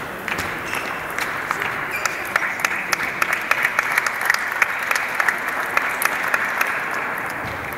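Audience applauding: a dense patter of clapping that builds about two seconds in and eases off near the end.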